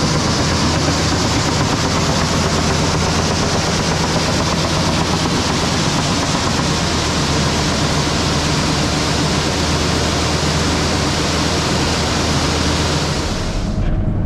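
Case IH combine harvester running steadily under load, a deep engine drone under a broad rushing hiss from the threshing and cleaning fans. The hiss drops away suddenly near the end.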